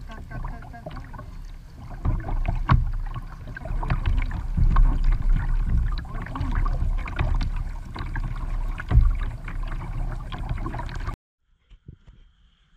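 Water splashing and slapping against a plastic sit-on-top kayak as it is paddled, with a few sharper splashes, over wind rumbling on the microphone. It cuts off abruptly near the end.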